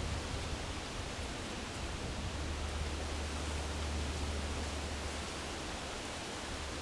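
Wind blowing across the microphone: a steady hiss with a low, uneven rumble.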